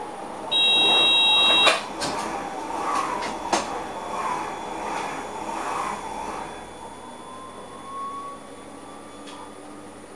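A shrill steady high tone sounds for just over a second near the start. Then an NS double-deck passenger train passes close by on the next track, its rumble swelling and clicking about once every 0.7 s as the bogies go by, before fading into a faint whine that slowly rises in pitch.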